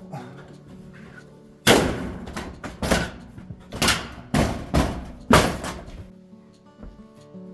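About six loud, sharp thuds in quick succession, a long metal siding panel being knocked into place, over background music.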